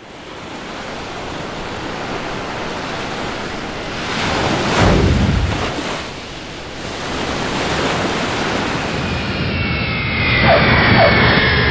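Ocean surf washing, a steady rushing sound that swells about four seconds in and eases off just after. Near the end, a few high, slowly falling tones come in over it.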